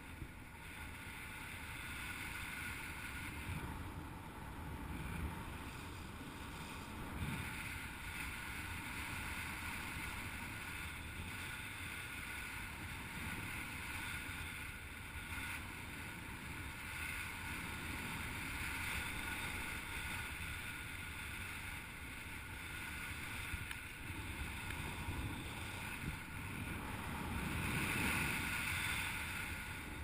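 Airflow rushing over the camera on a paraglider in flight in strong wind: a steady rumble and hiss of wind noise, swelling briefly near the end.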